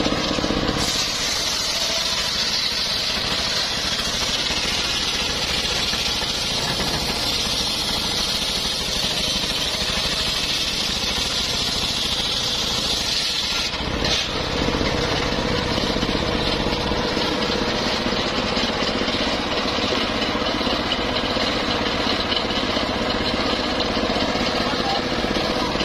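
Large engine-driven circular saw ripping lengthwise through a teak log, a steady motor hum under the hiss of the blade in the wood. The cutting hiss is strongest in the first half, breaks off briefly about fourteen seconds in, then carries on more weakly.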